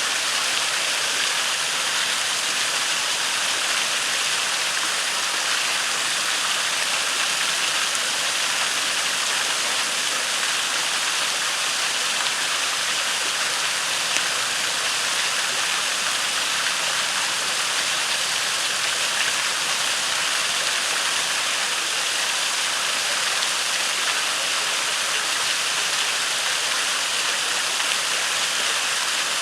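Creek waterfall rushing steadily, an even, unchanging wash of falling water.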